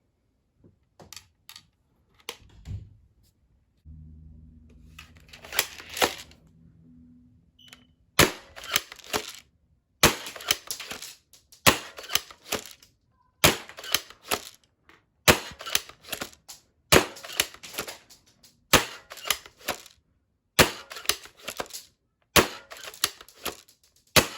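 Spring-powered pump-action airsoft shotgun (UKARMS P2302 SPAS-12 replica) being pumped and fired over and over, about ten times. Each shot is a sharp snap with a quick rattle of clicks from the pump, coming about every second and a half to two seconds.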